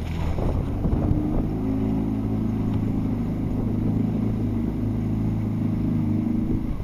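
Outboard motor of an inflatable safety boat under way. It picks up about a second in, runs at steady revs with water rushing along the hull, and drops away at the end.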